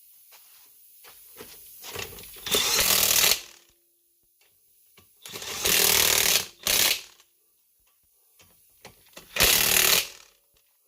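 Pneumatic impact wrench run in four short bursts, a second or less each, tightening the wheel's lug nuts.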